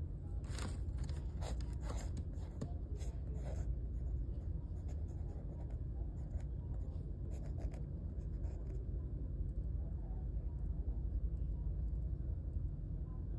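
Pencil scratching on paper in quick sketching strokes: a cluster of strokes in the first few seconds and another about seven to nine seconds in, over a steady low hum.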